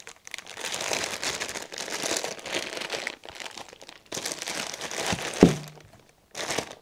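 Plastic packaging bags crumpled and rustled by hand, crinkling in two spells with a short pause between. A single sharp knock comes near the end of the second spell.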